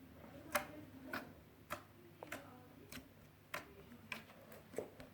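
Slime being squeezed and folded, giving off about eight short, sharp clicking pops at a rough, uneven rhythm of one every half second or so.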